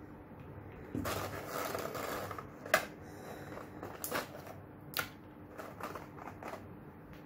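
Thin clear plastic blister tray being handled: a crinkling rustle for about a second and a half, then a series of sharp plastic clicks and taps, the loudest about a third of the way in.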